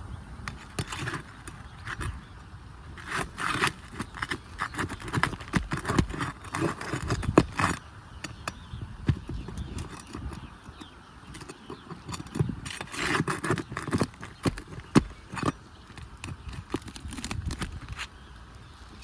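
Roofing nails being pried out of asphalt shingles: irregular clicks, knocks and scraping of a metal tool against the shingles and nails, busiest in two stretches, about three to eight seconds in and again around twelve to fifteen seconds in.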